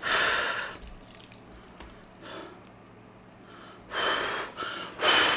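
A man blowing on a lifted chopstick-load of jjajang noodles: a breathy rush at the start, then two or three short puffs from about four seconds in, the later ones with a faint thin whistle.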